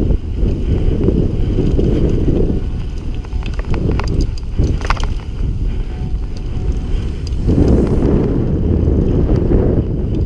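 Wind buffeting the microphone of a mountain bike rider on a trail, with the bike rattling and clicking over rough ground. The wind rumble eases for a few seconds around the middle, where the clicks and rattles stand out, then comes back loud near the end.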